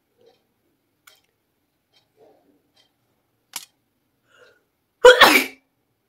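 A woman sneezes once, loudly and briefly, about five seconds in. It is a sneeze brought on by chili.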